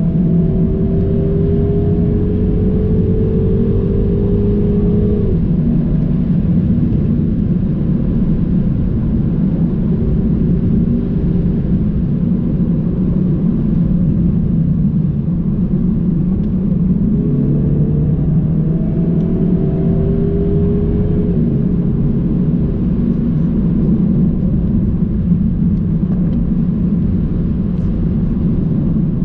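Car engine and tyre rumble heard from inside the cabin on an open road. The engine note climbs steadily and then drops suddenly, about five seconds in and again about twenty-one seconds in, as the car accelerates through the gears.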